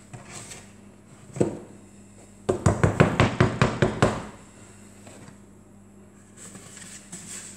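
Quick hollow knocks of a hand on the bottom of an upturned plastic tub, about ten in a second and a half after a single knock, loosening the risen pizza dough so it drops onto the board.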